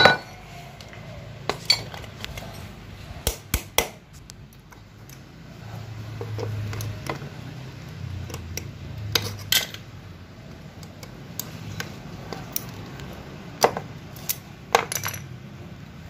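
Automatic-transmission clutch parts and hand tools clinking and knocking as they are handled in a plastic tray. There are about a dozen short, sharp metallic clicks at uneven intervals over a low hum.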